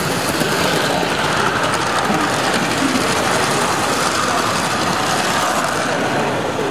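Model railway locomotives running past close by on the layout's track: a steady mechanical rattle of small wheels and motors that eases near the end.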